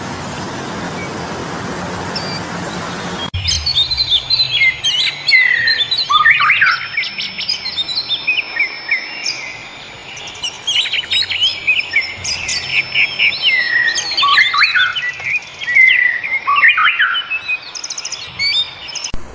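Several wild birds chirping and singing together in a busy chorus of quick whistles, trills and rapid chirps. A steady rushing noise fills the first three seconds and then stops abruptly as the birdsong begins.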